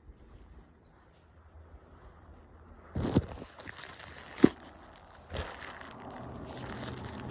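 Rustling and bumping of clothing against a phone carried in a pocket, with a sharp knock about four and a half seconds in. A bird chirps a quick run of high notes at the start.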